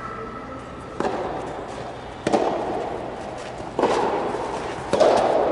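Soft tennis rally: four sharp racket strikes on the rubber ball, about one and a half seconds apart, each echoing in a large domed hall.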